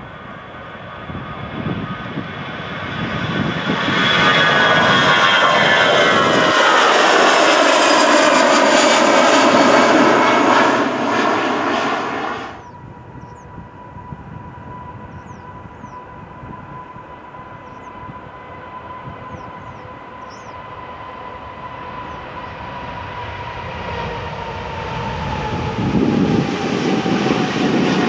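Airbus A320 jet airliner on take-off, its engine noise loud with several tones sliding downward as it passes, cutting off abruptly about twelve seconds in. Then a Boeing 777-200's jet engines on take-off: a steady whine that slowly drops in pitch and grows louder near the end.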